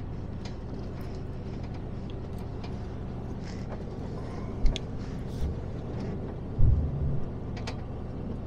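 Inside a lorry cab on the move: the truck's engine and road noise make a steady low rumble, with a sharp knock a little past halfway and a louder low thump about two-thirds through.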